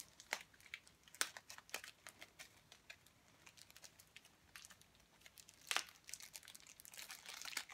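Scissors cutting slowly along the edge of a package: a few sharp snips among lighter clicks, then packaging crinkling and rustling near the end.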